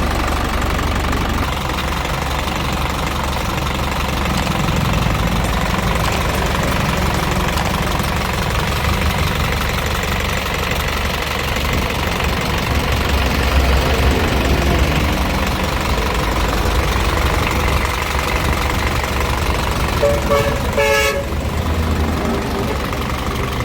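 Isuzu Elf truck's 4HG1 four-cylinder diesel engine running steadily at idle. A short pitched toot cuts in about twenty seconds in.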